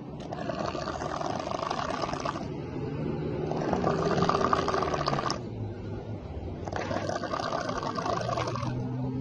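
A person snoring: three long, growling snores about three seconds apart, with quieter breaths between them. The snoring sounds like a tiger.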